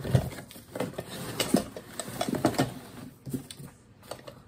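Corrugated cardboard packaging rustling, scraping and knocking irregularly as a cardboard tray holding a dinner plate is pulled out of a shipping box, with the loudest knock just after the start.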